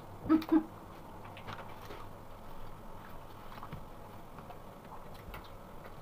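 A person eating, with two short closed-mouth 'mm-mm' sounds near the start, then faint scattered clicks and crackles of hands tearing apart a piece of food.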